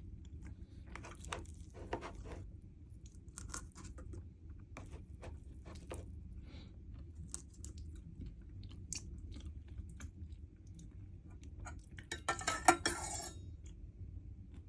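Chewing and crunching of crisp pani puri shells: short crackly crunches come every second or so. A louder, denser clatter comes near the end.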